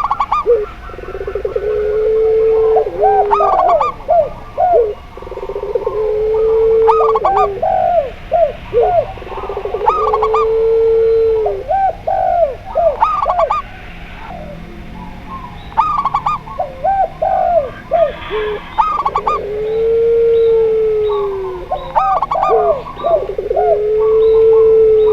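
Several doves cooing together: zebra dove (perkutut), spotted dove (tekukur) and barbary dove (puter pelung). Long, low, drawn-out coos repeat every few seconds, interleaved with quick, higher, rising-and-falling coo notes.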